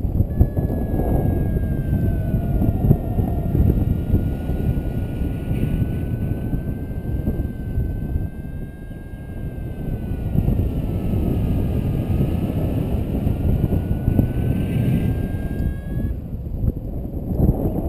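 Wind of flight buffeting the camera microphone under a paraglider, a dense, gusty rushing. A faint thin tone wavers slowly up and down in pitch beneath it and stops near the end.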